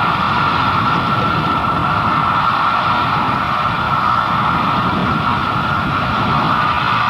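A jet turbine running steadily: a constant high whine over a loud rushing noise.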